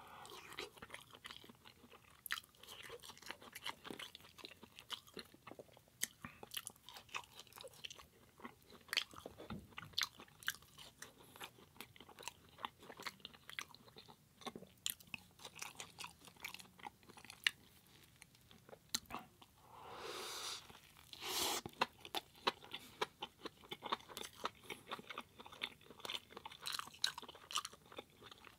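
Close-miked chewing and crunching of a plant-based burger meal, many small wet clicks and crunches in an uneven run, with a louder rushing sound about twenty seconds in.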